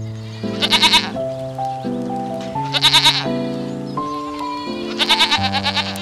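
A goat bleating three times, about two seconds apart, each call a quavering, trembling bleat. Soft piano music plays underneath.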